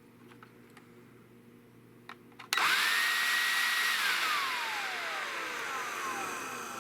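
SnapFresh 20-volt cordless leaf blower switched on after a couple of small clicks: a sudden rush of air with a steady high motor whine for about a second and a half. It is then switched off and spins down, the whine falling in pitch as the airflow fades.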